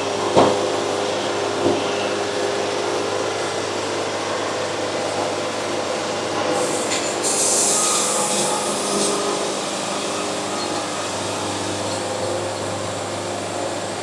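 Sawn lumber boards being handled and laid onto a sticker stack: two short wooden knocks near the start and a brief hiss about seven seconds in, over a steady mechanical hum.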